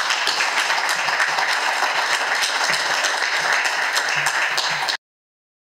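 Audience applauding steadily, then cut off suddenly about five seconds in.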